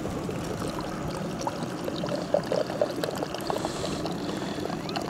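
Water being poured into a Jetboil stove's cooking cup: a steady trickle with small gurgles.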